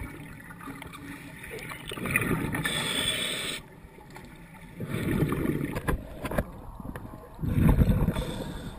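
Water bubbling and rushing around an underwater camera in uneven surges: a bright burst of bubbling about two seconds in, then heavier low rumbling surges, the strongest near the end.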